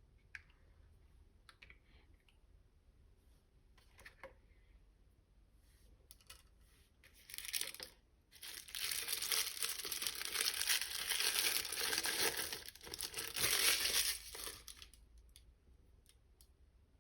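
Plastic toy packaging being torn open and crinkled by hand: faint light taps and clicks at first, a short crinkle, then about six seconds of continuous loud tearing and crumpling that dies away.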